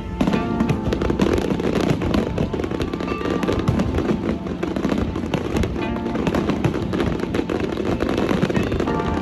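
Fireworks display with many bursts and crackles going off in quick succession, overlapping one another, with music playing along.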